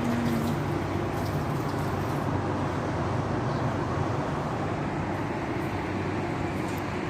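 Steady hum of distant city traffic, an even low noise with no separate events.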